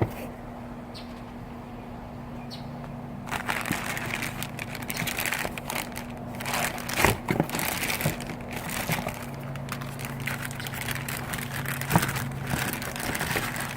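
Packaging crinkling and rustling as a new replacement interior door handle is unwrapped and handled, with a few sharp clicks and knocks of the plastic part.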